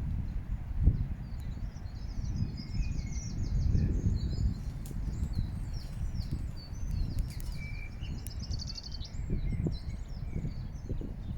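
Small songbirds chirping and twittering with many short calls and a couple of quick trills, over a steady low rumble.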